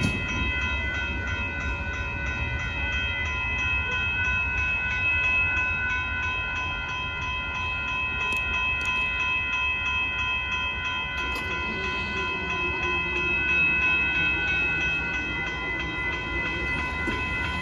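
Railroad grade-crossing bell ringing steadily with a fast repeating strike, over the low rumble of the Amtrak train.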